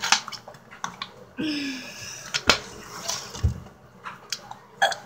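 Water moving in a plastic water bottle as it is chugged, with gulping and several sharp clicks.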